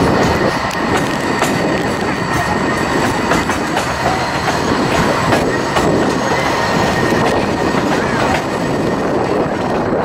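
Indian Railways passenger train running, heard from an open coach doorway: steady wheel-and-rail rumble with clicks over the rail joints, and a thin high squeal of the wheels as the train rounds a curve.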